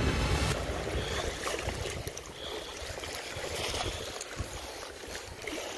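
Water sloshing and lapping against a shoreline rock, a steady noise that eases a little about two seconds in.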